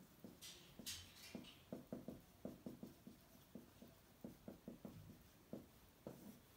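Faint handwriting sounds: irregular light taps and short strokes of a pen or marker writing, with a couple of brief scratchy strokes about a second in.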